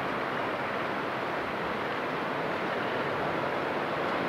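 Steady rushing noise of waves washing along the shore.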